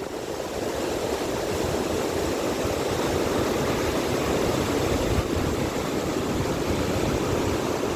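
Waterfall and river water rushing steadily, a constant roar of falling water, with strong wind buffeting the microphone.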